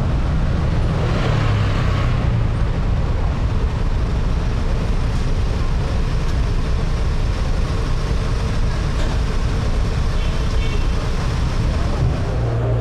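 Steady city street traffic: a continuous rumble of passing vehicles, with one swelling pass about a second in.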